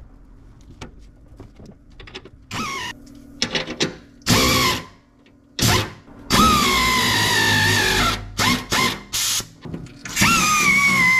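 Hand-held power tool running in the bottom engine-panel bolts on a Range Rover Sport: a string of short whining bursts and two longer runs near the middle and end, the whine sagging slightly in pitch as each bolt is driven.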